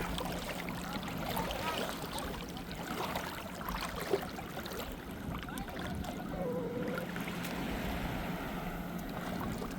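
Sea water sloshing and lapping in the shallows at the shoreline, a steady watery wash.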